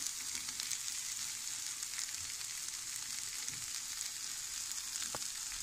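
Sliced onions and chopped green chillies frying in a little oil in a pan: a steady, even sizzle. One light tap sounds near the end.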